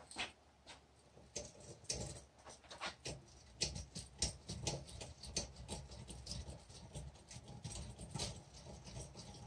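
Hand deburring tool's blade scraping around the inside edge of a cut-down spark plug shell clamped in a vise, cutting a small chamfer into the bore's edge: a run of faint, irregular scrapes and ticks.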